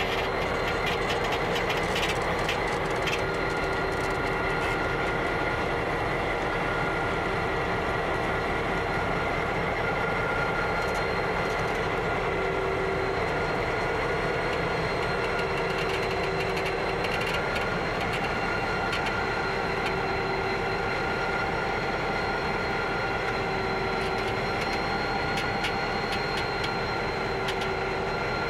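Two diesel-electric locomotives, a BL class and a G class, rolling slowly past at low speed with their engines running steadily. Their engines carry a few steady whining tones, and wheel-on-rail clicks come now and then.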